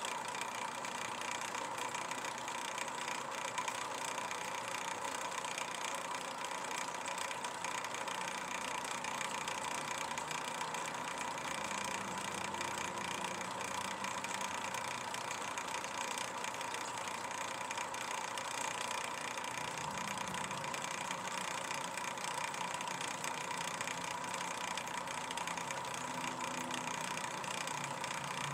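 Steady mechanical hum with a constant whine running through it, unchanging throughout, with faint low swells now and then.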